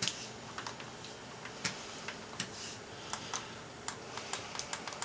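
Push buttons on a freshly rebuilt C5 Corvette CJ2 electronic climate control panel clicking as they are pressed one at a time to test each one, about ten short clicks at uneven intervals.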